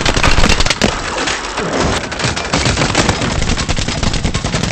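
Film battle sound effects: rapid, continuous machine-gun fire mixed with explosions and flying debris, loudest in the first second.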